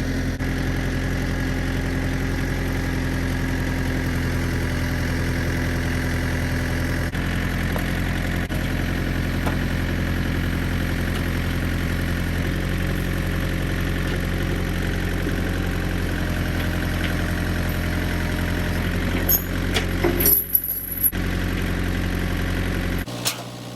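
Tractor engine running at a steady idle. A few sharp metallic knocks and clanks sound about three seconds before the end, and the engine sound stops abruptly just before the end.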